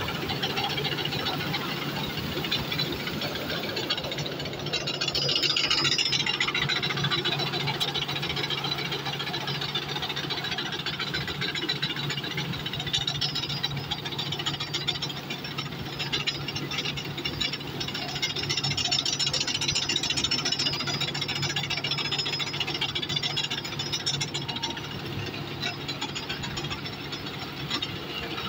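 Claas tracked combine harvester running while it cuts a standing crop: a steady engine hum under the dense clatter and rattle of the header, tracks and threshing gear.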